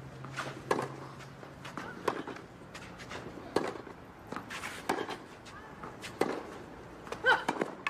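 Tennis rally on a clay court: a racket strikes the ball about six times, roughly every second and a half, as the two players trade groundstrokes, with footsteps scuffing on the clay between hits. A short voice is heard near the end.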